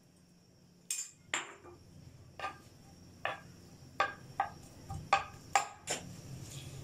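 Metal spoon knocking and scraping against a non-stick frying pan while stirring shredded boiled chicken in a little oil: about ten sharp, irregular clinks from about a second in, over a faint low hum.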